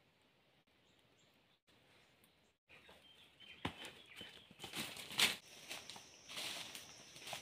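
Near silence for the first few seconds, then footsteps crunching and rustling through dry leaf litter and dead banana leaves: an irregular run of crackles that grows louder. A steady high tone joins about two seconds before the end.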